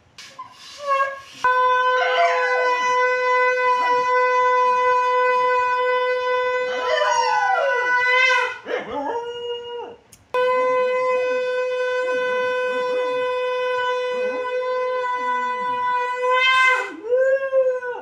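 Conch shell blown in two long steady blasts on one low note rich in overtones, each lasting six to seven seconds with a short break between. A dog howls along over the note, its howl rising and falling, most strongly near the end of each blast.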